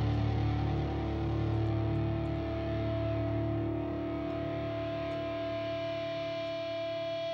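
Distorted electric guitar holding a final chord that rings out steadily and slowly fades at the end of a live groove-metal song.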